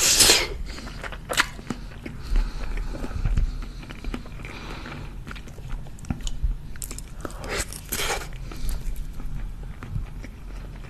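Close-miked chewing and mouth sounds of a person eating spoonfuls of kabsa, chicken with rice, with many small wet clicks and smacks and a few louder bursts.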